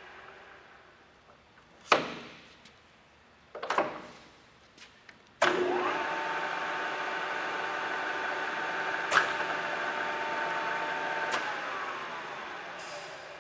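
Kingston HL4000 engine lathe: two heavy clunks from the headstock controls, then the spindle starts suddenly with a steady gear whine. It runs for about six seconds with a click midway, then winds down, its pitch falling as the chuck coasts to a stop.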